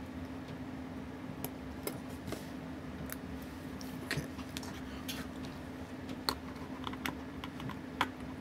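Small, irregular clicks and taps of a watch movement and its dial being handled and set into a plastic movement holder, the sharpest two near the end, over a steady low hum.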